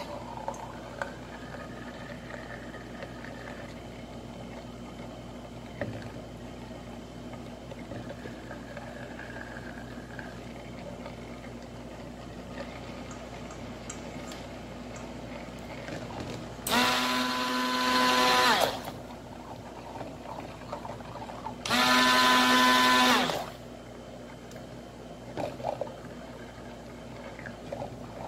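Handheld stick blender switched on in two short bursts of about two seconds each, past the middle, its motor whining as it blends a thick cream emulsion in a stainless steel bowl. Between the bursts there is only a low steady hum.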